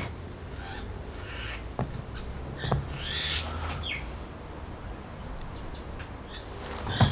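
Birds calling in short chirps, with a few sharp knocks, the loudest near the end, over a steady low rumble.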